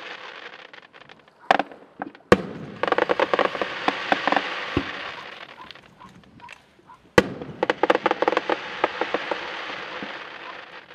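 Fireworks bursting: two sharp bangs in quick succession and a third about seven seconds in, each followed by a few seconds of dense crackling from the breaking shells.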